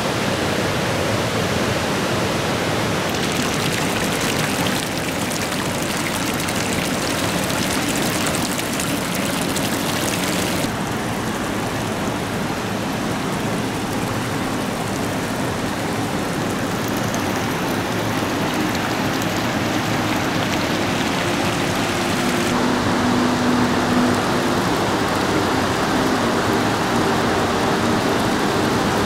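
Steady rushing water, a dense even hiss whose character changes abruptly about four, eleven and twenty-two seconds in.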